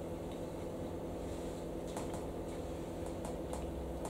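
Quiet kitchen room tone with a steady electrical hum, and a few faint clicks from a person chewing a mouthful of food.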